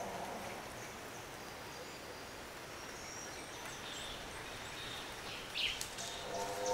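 Outdoor forest ambience: a steady hiss with faint, high bird chirps through the middle and a short sharp call about five and a half seconds in. A pitched call with several even tones starts near the end.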